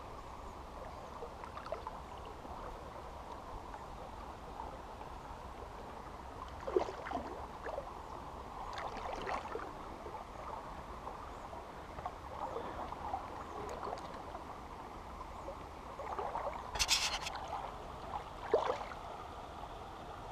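Steady rush of a small flowing river, broken by scattered splashes and water sloshes as a hooked chub is played and drawn in to hand, the loudest splash coming a few seconds before the end.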